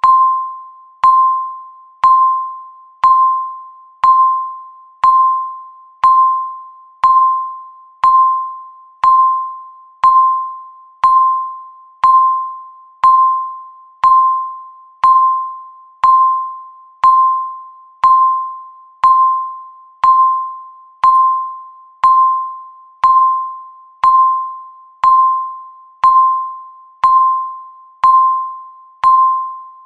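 Countdown timer beeping once every second: a single tone of one steady pitch, each beep starting sharply and fading away before the next.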